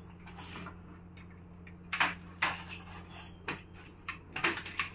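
Metal flood light housing and its bracket being handled and turned on a wooden workbench: a series of clunks and short scrapes against the wood, the loudest about two seconds in, over a steady low hum.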